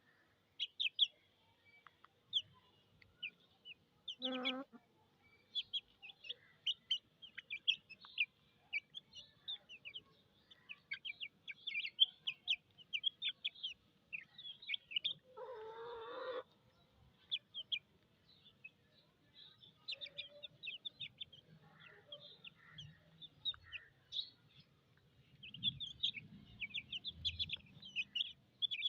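A brood of domestic chicks peeping rapidly and continuously in high, short notes, with an adult hen calling among them: a short call about four seconds in and a longer one around the middle.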